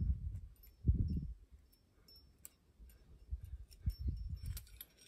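Wind buffeting an outdoor microphone in uneven low gusts, the strongest about a second in, with scattered small clicks and ticks.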